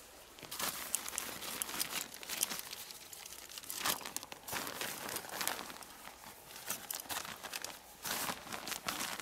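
Irregular crinkling and rustling, thick with sharp crackles, starting about half a second in: something crinkly being handled.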